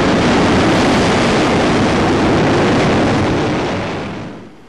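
Jet aircraft noise, a loud steady rush that fades out near the end.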